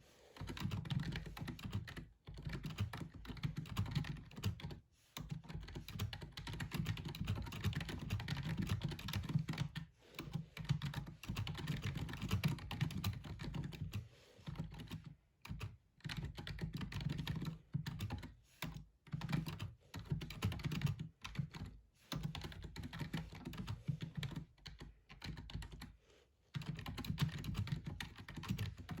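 Rapid typing on a gaming keyboard: fast runs of key clicks broken every few seconds by brief pauses.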